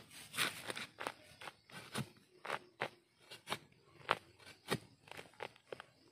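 A wooden stick digging and scraping into earth and leaf litter: irregular crunches and sharp clicks, about two or three a second.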